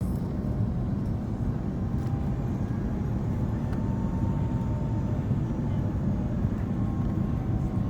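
Cabin noise of an Airbus A330 airliner on approach: a steady low rumble of engines and airflow, with a faint whine in the middle.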